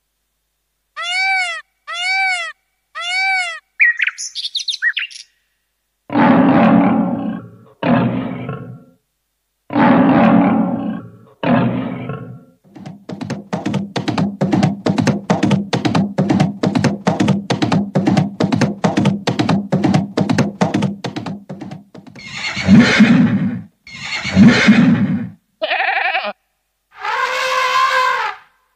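Built-in sound-effect tones of a Casio CT-X700 keyboard played one after another. First come three short identical chirps and a trill, then several animal-like cries, then a fast run of repeated strokes lasting about nine seconds, and finally more cries.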